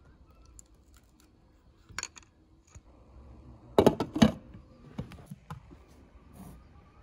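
A glass pot lid set down on a metal cooking pot, clattering in a quick run of sharp knocks about four seconds in. A lighter clink comes about two seconds in, and softer handling knocks follow as the pot is moved.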